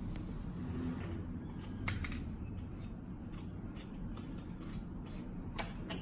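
Small metal clicks and taps as the parts of a pneumatic shock wave therapy handpiece are handled and fitted together, with a few sharper clicks about two seconds in and near the end, over a steady low hum.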